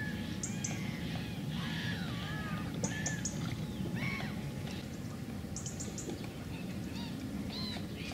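Small birds chirping and calling over and over, with quick runs of three or four high notes, over a steady low background noise.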